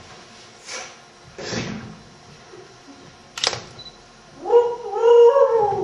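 Improvised vocal sound effects made by a performer: short breathy whooshes, a sharp click, then a loud, drawn-out cat-like meow near the end.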